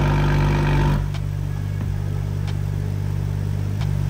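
2022 BMW M340i's turbocharged B58 inline-six idling steadily through a freshly installed stainless steel valved cat-back exhaust. The sound turns quieter and duller about a second in, with a few faint ticks.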